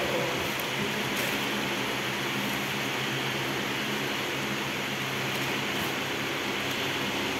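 Steady mechanical hum with a broad, even hiss, unchanging throughout.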